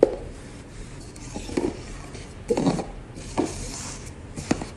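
Paper cups being slid and set down on a marble floor: a handful of short scrapes and taps about a second apart.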